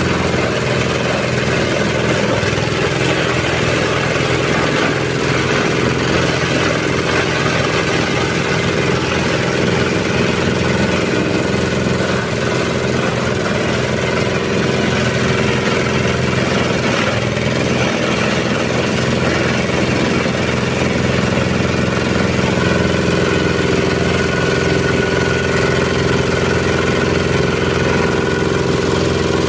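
Type SM 30 multipurpose shredder-grinder running steadily under its 8 hp diesel engine, a constant engine drone with little change in pitch.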